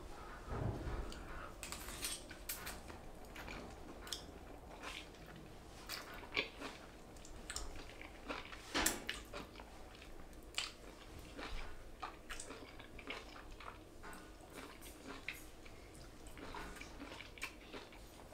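A person slurping and chewing zucchini noodles eaten off metal chopsticks: a run of short, wet mouth sounds scattered throughout, the loudest about nine seconds in.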